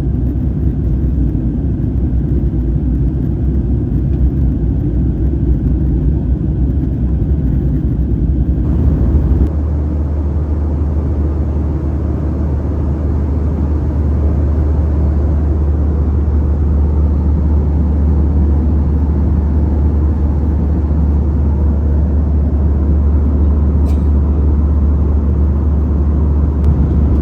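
Airbus A321 passenger cabin in flight: a steady, loud low rumble of engines and airflow. About nine seconds in, the deep hum shifts and becomes steadier and stronger.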